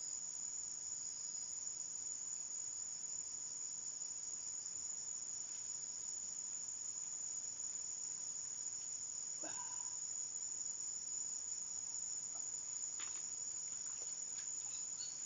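Steady, high-pitched chorus of insects, with a short faint call a little past halfway and a few faint clicks near the end.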